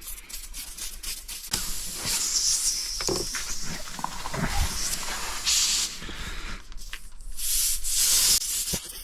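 Air hissing out of a punctured car tyre in two long spells as a tyre-plug reaming tool is worked in and out of the hole to enlarge it.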